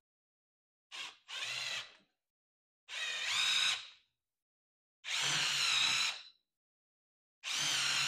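Cordless drill run in five short bursts, a brief blip and then four runs of about a second each, its motor whine rising as it spins up each time. It is boring the screw holes through the new vinyl seat upholstery into the board beneath.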